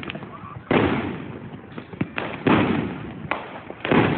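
Consumer fireworks going off: a run of about five sharp bangs at uneven intervals, each trailing off in a fading echo.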